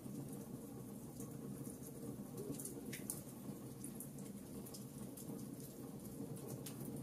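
Logs burning in a fireplace: irregular sharp crackles and pops, a dozen or so, over a steady low rumble of the fire. One pop about three seconds in is the strongest.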